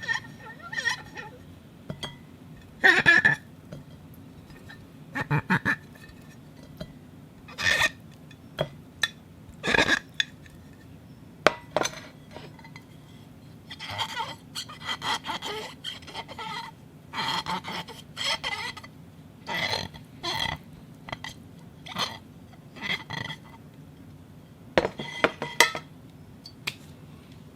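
Crystal glass made to squeak and chirp in a series of short, separate pitched bursts, used as foley for animal calls; the bursts come thicker in the second half.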